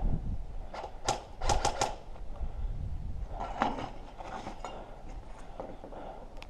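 A quick run of four sharp clicks about a second in, then a few scattered knocks over a low rustle.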